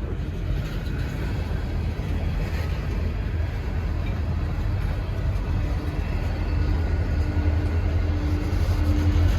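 Freight train rolling past at speed: a steady low rumble that grows a little louder toward the end, with a faint steady hum joining in about halfway through.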